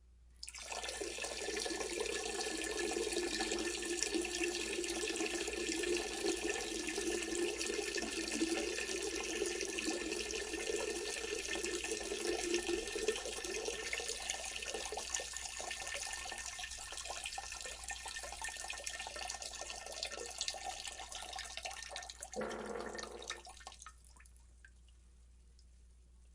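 Steady stream of running water that tails off and stops about twenty-three seconds in.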